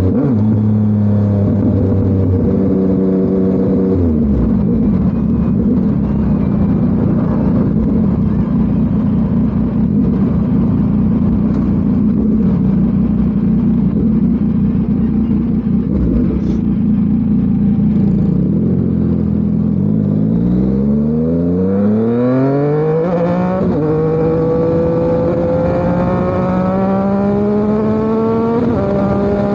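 Yamaha MT-09's crossplane inline-three engine through an SC Project CRT exhaust. It runs steadily with a rough, dense note for a long stretch, then pulls hard with the pitch climbing quickly. It breaks for gear changes about three quarters of the way through and again near the end.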